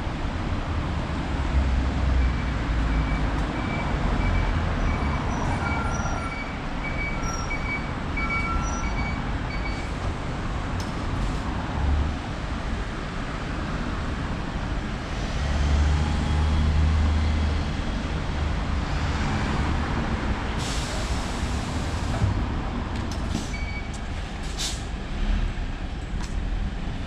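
City bus pulling in to a stop and standing with its diesel engine running, over steady road noise. A run of short, evenly spaced high beeps sounds in the first third, and compressed air hisses out sharply about two-thirds in and again near the end.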